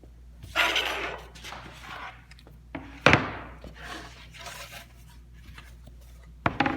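Wooden drawer parts being handled on a workbench: a brief scraping rub, then a sharp knock about three seconds in and another knock near the end.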